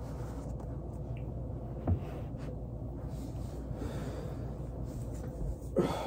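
A person shifting their body over a textured foam roller on carpet, breathing audibly. There is a dull thump about two seconds in and a short, louder grunt near the end.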